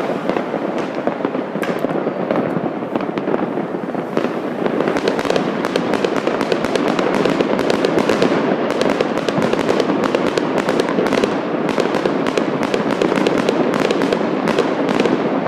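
Fireworks going off all over a city at once: a dense, continuous barrage of cracks and bangs over a steady rumble, growing thicker a few seconds in.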